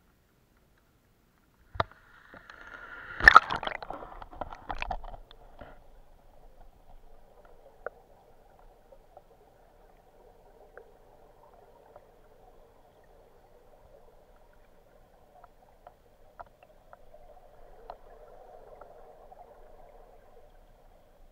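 Action camera plunging into lake water: a sharp knock about two seconds in, then a burst of splashing and bubbling for a few seconds. After that a faint, muffled, steady underwater noise with occasional small clicks, a little louder near the end.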